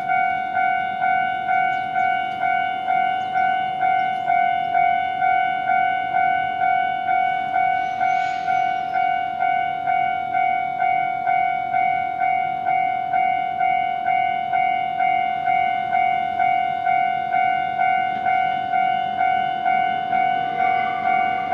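Japanese level-crossing warning bell ringing: a repeated electronic ding about twice a second, steady throughout.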